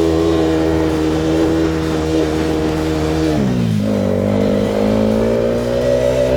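CFMoto 520L ATV engine running under way, holding a steady pitch, then dropping sharply about three and a half seconds in as the throttle eases, before climbing slowly again.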